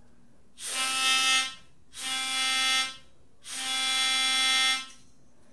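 A single melodica reed, the note C, sounded by blowing straight onto the exposed reed while its key is held down: three held notes at the same pitch, each about a second long, with short pauses between. Sounding the reed this way checks its tuning with the instrument left open.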